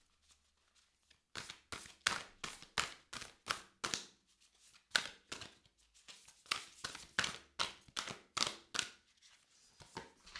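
A deck of tarot cards being shuffled by hand: a quick run of soft slaps and flicks, about three or four a second, starting about a second in, with short breaks in between.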